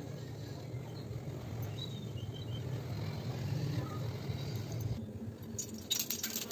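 Steady low hum, then about five and a half seconds in a dense run of sharp crackling and popping begins: hot oil frying the semolina-potato snacks.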